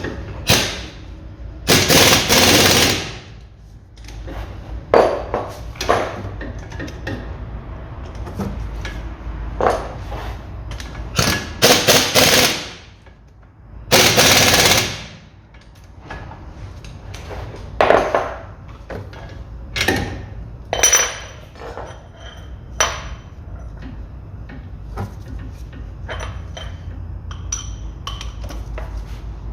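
A wrench tightening the driveshaft flange bolts: several short, loud bursts of rapid clicking about a second each, with quieter metal clicks and knocks between them.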